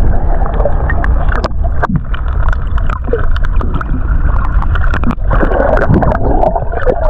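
Ocean waves washing and surging against rocks with a constant low rumble of wind on the microphone, broken by scattered sharp clicks and knocks.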